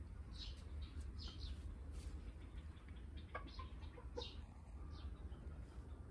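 Domestic hens clucking softly, with short scattered calls and a few light ticks, over a steady low rumble.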